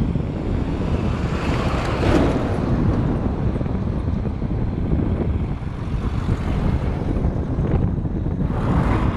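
Wind buffeting the microphone: a loud, steady low rumble that swells twice, about two seconds in and again near the end.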